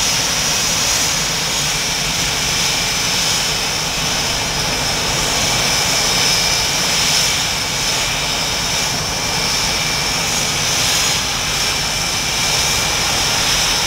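Blue Angels F/A-18 Hornet jet engines (General Electric F404 turbofans) running steadily on the ramp: a loud, even rushing noise with a high, steady whine on top.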